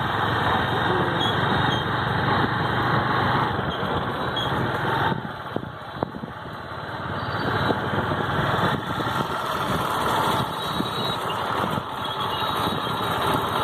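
A motor vehicle's engine running on the move, easing off for a couple of seconds about halfway and then building back up.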